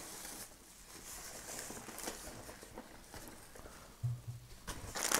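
Faint rustling and soft knocks of groceries being taken out of a backpack, with a short low hum about four seconds in.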